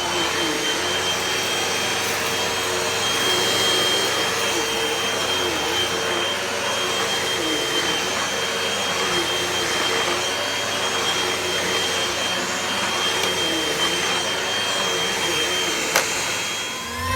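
Vacuum cleaner running steadily, with an even high whine over its constant motor noise; a single sharp click near the end.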